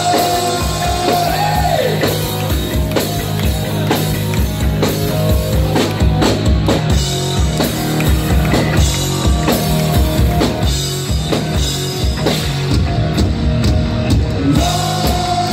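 Live rock band playing loudly: drum kit, electric guitar, bass guitar and vocals, with a long held note at the start and again near the end.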